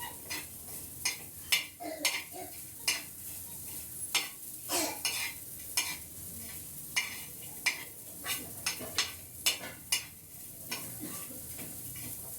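A metal spoon scrapes and taps irregularly in a pan, about one or two strokes a second, over a faint steady hiss. The spoon is stirring borax (suhaga) as it roasts and puffs up white.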